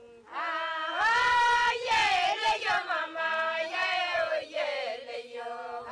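Women's voices singing together. About a second in, a loud, high voice comes in over the others with long notes that slide up and down.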